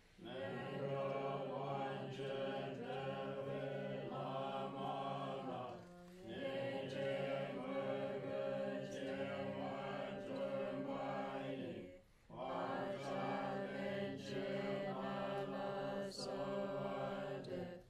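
A group of voices chanting a Tibetan Buddhist liturgy in unison, in three long, fairly level phrases of about six seconds each, with a short break for breath between them.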